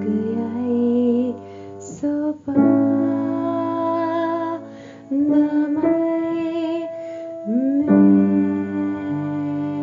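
Background music led by piano and keyboard, with sustained notes and some sliding, wavering melody lines.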